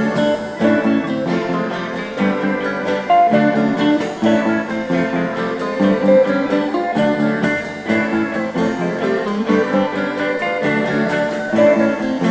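Background music led by guitar, with steadily plucked and strummed notes.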